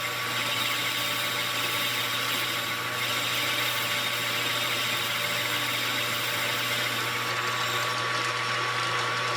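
Metal lathe running steadily, a constant motor hum with a thin steady whine over it.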